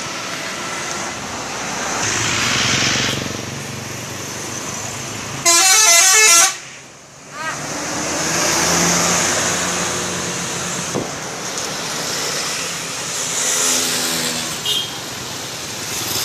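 A bus's 'telolet' musical air horn blasts a quick run of notes for about a second, some five seconds in, then cuts off. Road traffic and engine noise run steadily underneath.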